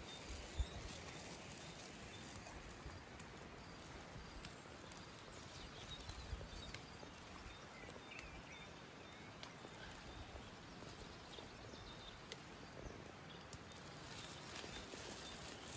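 Faint rustling of leafy broad-bean plants with small snaps and clicks as pods are picked by hand, over a quiet outdoor hiss, with a few soft low thumps.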